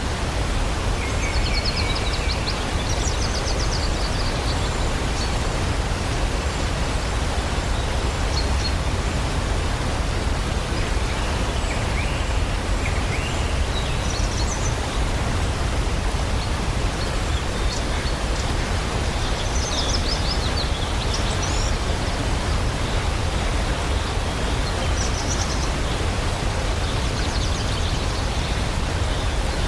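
Waterfall rushing steadily, with small birds chirping and trilling now and then above the water's sound.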